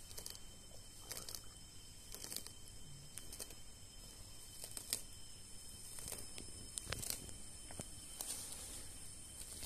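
Sulcata tortoise biting and tearing at grass and leaves: a scatter of soft, irregular crunches and rips.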